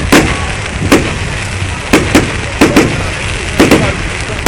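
Aerial fireworks bursting: about nine sharp bangs over four seconds, several coming in quick pairs, over a steady low rumble.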